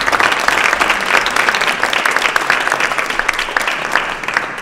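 Audience applauding: many hands clapping together, dying away at the very end.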